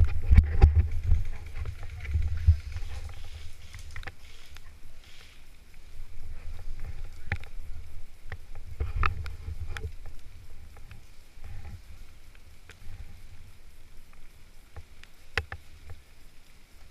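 Low rumbling handling and movement noise on the microphone, loudest in the first couple of seconds, with a few sharp clicks scattered through it.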